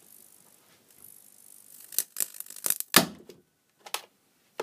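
A Chinese mains-powered mosquito killer's circuit board exploding. A faint hiss is followed, about two seconds in, by a rapid run of sharp cracks and pops, loudest about three seconds in. A capacitor in its cheap high-voltage multiplier blows its side clean off, and the mains tracks burn off the board.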